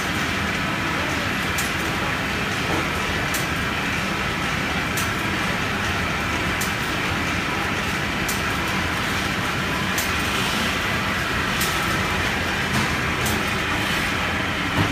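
Continuous-motion automatic sealer and shrink tunnel (GH-3015CM with SF-5030LG) running: a steady mechanical whir with a sharp click repeating about every 1.6 seconds as the machine cycles.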